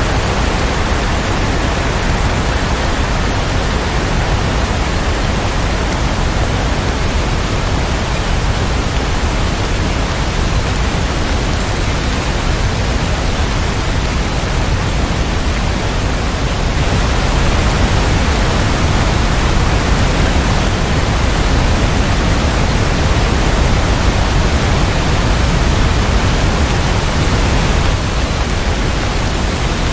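Steady rain, a dense even hiss with no separate drops or thunder. It swells slightly a little past halfway and eases back near the end.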